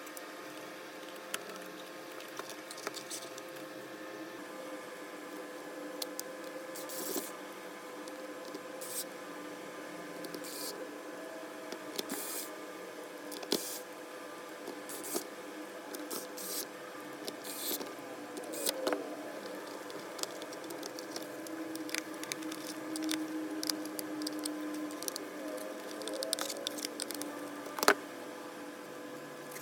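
Scattered clicks, taps and scrapes from handling the parts of a cordless vacuum cleaner during a service, over a faint steady hum. One sharper click comes near the end.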